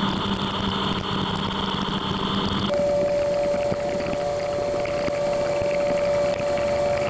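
CNC mill-turn lathe roughing the outside diameter of a spinning steel part under flood coolant: steady spray and cutting noise over the machine's running hum. About three seconds in the hum gives way abruptly to a steady whine.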